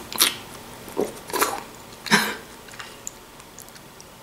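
A woman's mouth sounds as she eats hot chicken broth from a spoon: a few short sips and breaths in the first couple of seconds, one with a brief hum.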